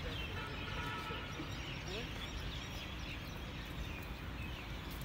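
Many birds chirping and calling at dusk, short quick notes and brief trills over a steady low outdoor rumble.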